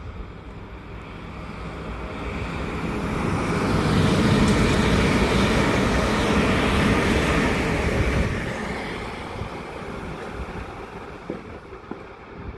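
A train passing on the line, its rumbling noise building for a couple of seconds, loud for about four seconds, then fading away.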